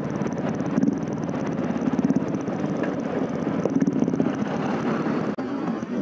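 Royal Enfield Thunderbird 350X single-cylinder engine with an aftermarket silencer, running steadily at cruising speed, a fast even thumping from the exhaust, mixed with the other Bullet riding close ahead, a combined note the rider likens to a Harley-Davidson. Wind noise on the microphone.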